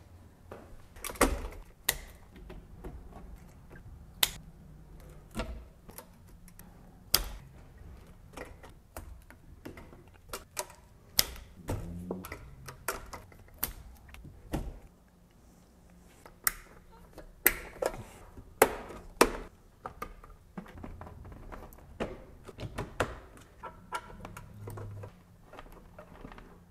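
Irregular clicks, taps and knocks from hands fitting plastic tubing and cables on a wall-mounted dosing-pump and manifold panel. The sounds are short and sharp, spaced unevenly, a few seconds apart at most.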